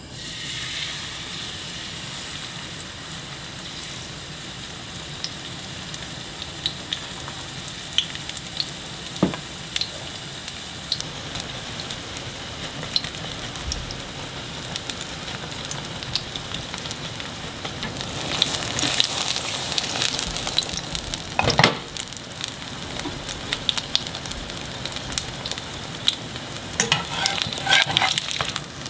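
A garlic-chive pancake (buchujeon) frying in cooking oil in a pan, a steady sizzle that grows louder past the middle. Occasional sharp clicks and one louder knock come through the sizzle.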